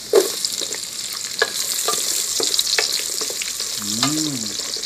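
Sliced onions dropped into hot garlic oil in an aluminium pot, starting with a sudden loud sizzle and then frying with a steady hiss. Through it a wooden spatula stirs, scraping and tapping against the pot.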